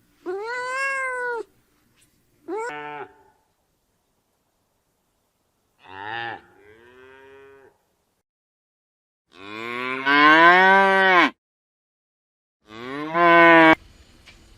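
A cat meows twice in quick succession. Then come three longer, lower-pitched calls from cattle, the loudest about ten seconds in and the last cut off sharply.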